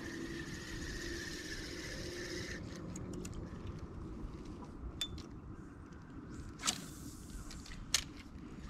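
A fishing reel being wound, a steady whirring for about two and a half seconds that then stops, followed by a few sharp clicks and knocks from handling the rod and reel.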